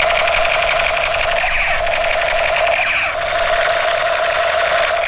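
Battery-powered light-and-sound toy space gun playing its electronic firing effect: a steady buzzing tone under a harsh hiss, with a higher tone that cuts in and out.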